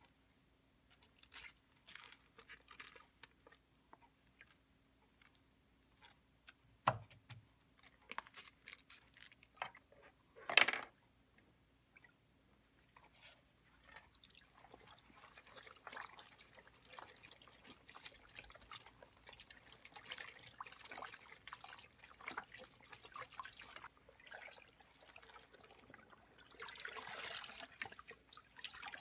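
Rubber-gloved hands handling cloth in a plastic basin of indigo dye bath. At first there are scattered faint crinkles and taps, with a sharp knock and then a louder brief crackle in the first half. After that comes faint steady sloshing, dripping and squelching of wet fabric, heavier near the end as the cloth is squeezed.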